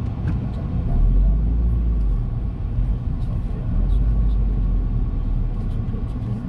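Low rumble of a car rolling slowly, heard from inside the cabin, with the deep rumble swelling twice: about a second in and again around four seconds in.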